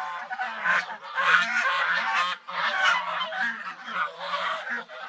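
A flock of domestic geese honking, many calls overlapping in a continuous clamour.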